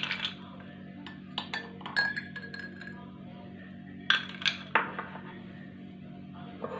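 Ice cubes dropped with a metal spoon into glasses of milk, clinking against the glass: a few sharp clinks about one and a half to two seconds in, one ringing briefly, then another group of clinks around four to five seconds in.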